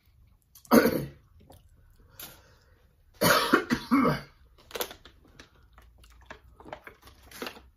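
A man coughing hard twice, once about a second in and again, longer, around three seconds in. He is coughing on the heat of spicy boiled crawfish.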